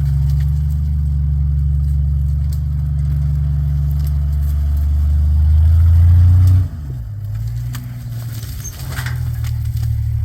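Off-road vehicle engine running hard with a loud low drone, then dropping off abruptly about two-thirds of the way in to a quieter, uneven running, with scattered knocks and clatter from the rig over the rocks.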